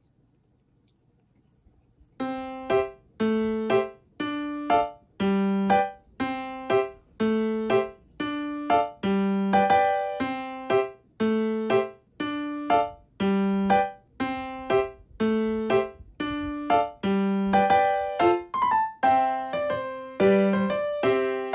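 Background music: a light keyboard tune with evenly repeating piano-like notes over a steady beat, coming in about two seconds in after near silence.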